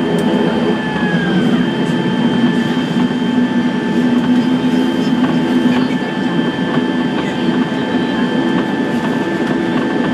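Cabin noise of a Dornier 328 turboprop rolling on the ground after landing: the engines and propellers make a steady drone with a constant high whine over it.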